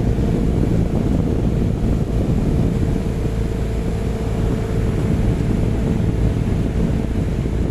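Small DC-motor fan running with a steady hum, its airflow rumbling on the microphone; it cuts off abruptly at the end.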